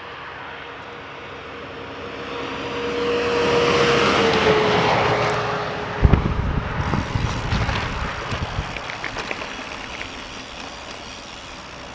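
A motor vehicle passes on the road at speed: its tyre and engine noise swells to a peak about four seconds in, and its pitch drops as it goes by. A sudden low rumbling starts about six seconds in and fades toward the end.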